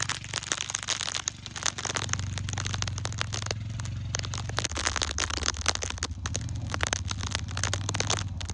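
Vehicle engine running steadily, its note dropping about halfway, under constant crackling and crunching.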